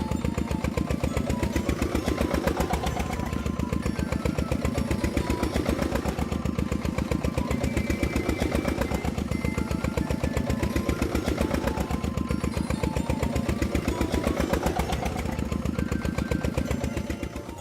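Engine sound effect for a grader: an engine running steadily with a rapid, even chug, stopping just before the end.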